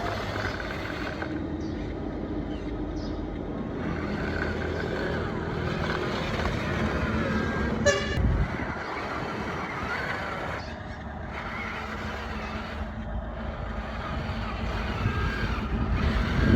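RC construction trucks running with a steady engine-like drone, and a short horn toot about eight seconds in.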